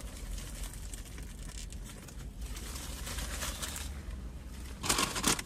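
Foil burger wrapper crinkling in the hands while a burger is bitten and chewed, with a louder crinkle of the foil about five seconds in.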